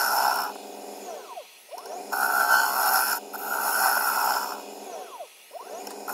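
Gouge cutting into the face of an ash platter spinning on a wood lathe, throwing off shavings. One cut ends about half a second in and a second cut runs from about two seconds to four and a half, with quieter gaps between as the tool is drawn back.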